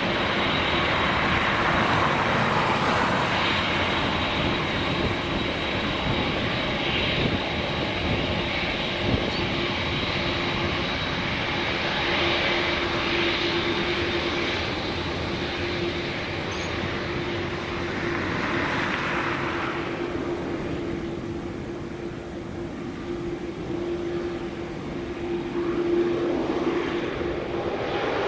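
Large airplane's engines running: a continuous rushing roar with a steady whining tone, easing a little past the middle and swelling again near the end.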